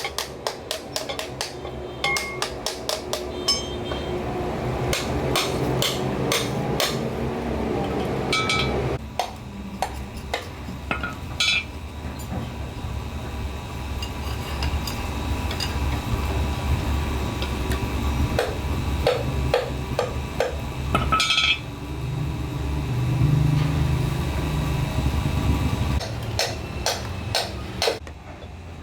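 Hammer striking metal in irregular taps, with a quick run of blows in the first few seconds and scattered groups later, over a steady low hum.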